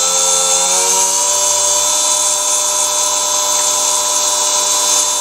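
Small electric milling spindle with a 3 mm end mill spinning up: its whine rises in pitch over the first second or so, then runs steadily at speed.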